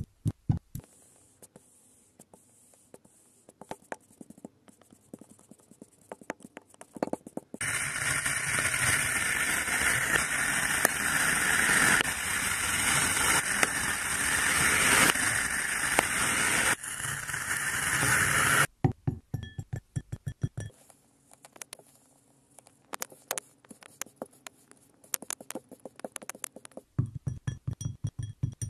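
Kinetic sand ASMR: rapid soft thuds as balls of kinetic sand drop into a glass, near the start and again near the end, with scattered light crumbles and clicks between. In the middle come about eleven seconds of continuous grainy crunching as a snap-off utility knife blade slices through a block of kinetic sand.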